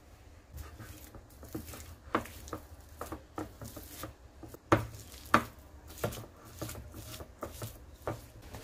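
A spatula stirring egg yolk into creamed butter in a ceramic bowl: irregular scraping and knocking against the bowl, with two sharper knocks about five seconds in.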